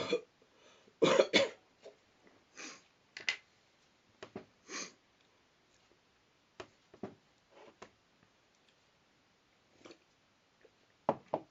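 A person coughing and clearing their throat in a dozen short, scattered bursts, the loudest a pair about a second in.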